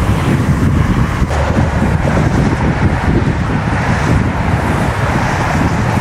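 Wind buffeting the microphone over a steady rush of interstate traffic.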